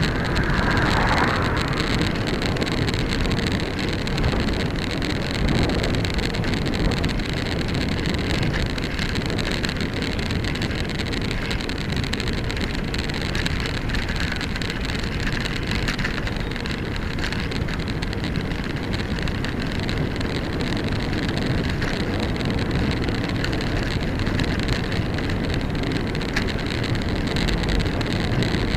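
Steady wind and road rumble on a cycling camera's microphone while riding a bicycle along a road. A brief swell in the first couple of seconds as an oncoming car passes.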